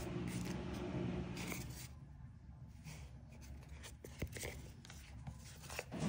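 Faint handling sounds of a doorbell mount's parts and foam being worked by hand: light rubbing and a few short clicks. A steady low hum fades out about two seconds in.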